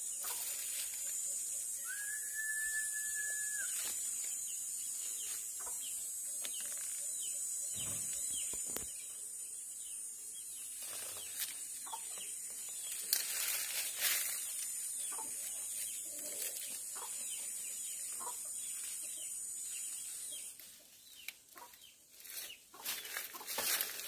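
Outdoor ambience in dense tropical vegetation: a steady high insect drone that cuts off suddenly about twenty seconds in. A single clear whistled note is held for about a second and a half a few seconds in, with scattered short bird calls. Leaves brush and crackle against the handheld phone near the end.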